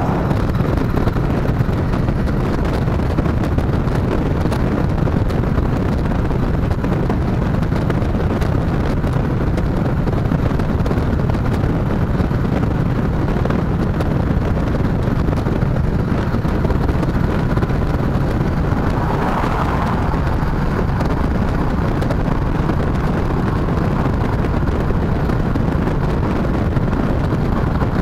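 Chopper-style motorcycle engine running steadily at cruising speed, with wind rushing over the microphone.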